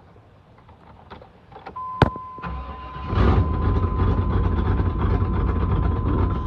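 A sharp click, then a steady high beep. About two and a half seconds in, the 1995 Chevrolet Suburban's 350 TBI V8 cranks briefly, catches about three seconds in and settles into a steady idle. This is the first start on freshly replaced fuel injectors, after a loss of power that the owner put down to an injector stuck closed.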